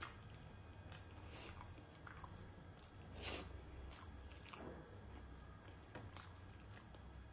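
Faint, close-up chewing and wet mouth clicks from someone eating soft steamed momo dumplings, coming at irregular intervals, the loudest about three seconds in.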